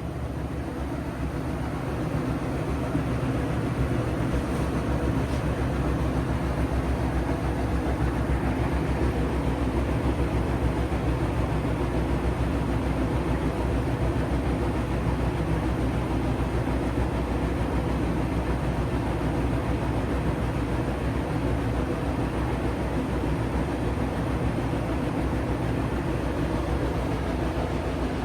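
Siemens washing machine on a fast spin, the drum running with a steady rumble as the machine shakes. It spins up over the first couple of seconds, then holds steady.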